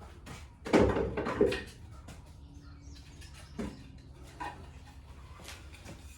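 Wooden knocks and clatter as winding sticks are set down on the sole of a wooden jack plane: two loud knocks about a second in, then a couple of lighter taps later on.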